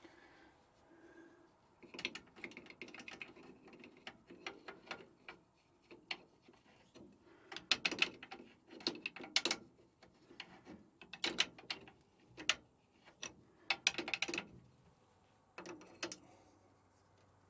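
Metal clicks, clinks and rattles of a crescent wrench turning an air-hose fitting, in irregular bursts of several seconds with short pauses between.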